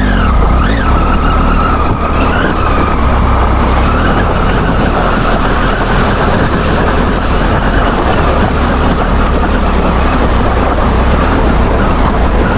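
Triumph Tiger 800's three-cylinder engine running steadily as the motorcycle is ridden slowly over a rocky, wet stream bed.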